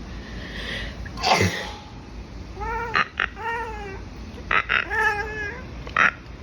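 A person sneezes once, loudly, about a second in, and a cat answers with a run of short meows, several calls in a row with brief sharp clicks between them.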